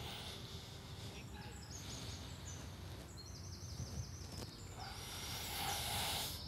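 Outdoor ambience: small birds chirping, with a fast repeated trill in the middle, over a steady low rumble. Near the end a louder rush of noise rises and stops.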